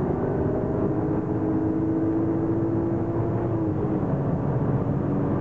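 Engine and road noise of a moving car, heard from inside the cabin. It runs steadily, with the engine note stepping down slightly about two-thirds of the way through.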